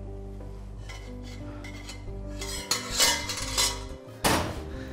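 Kitchen dishes and utensils clinking and clattering: a few sharp knocks about three seconds in and a louder clatter just past four seconds, over steady background music.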